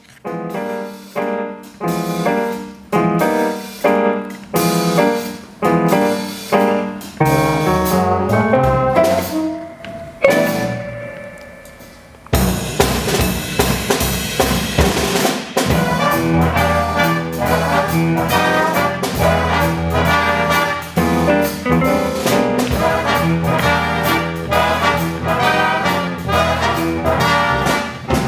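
Jazz big band playing live: the horn section and drums hit a string of short, accented ensemble chords, then a loud chord rings out and dies away. About twelve seconds in the full band with drum kit comes in together and plays on steadily.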